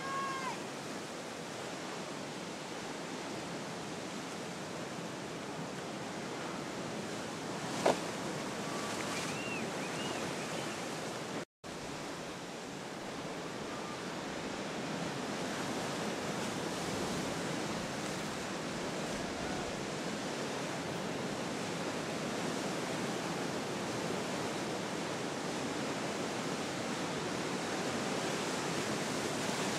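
Steady wash of ocean surf breaking. A single sharp knock about eight seconds in, a few faint high chirps just after, and a moment of dead silence a few seconds later.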